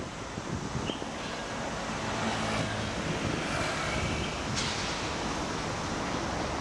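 Steady city road traffic noise, with a vehicle engine humming for a few seconds and one sharp click about four and a half seconds in.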